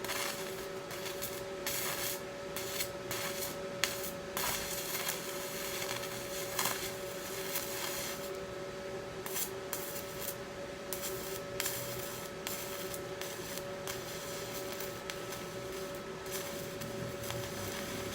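Stick welding arc crackling and hissing steadily as a welding rod is run to fill a rust hole in thin sheet metal, over a steady hum.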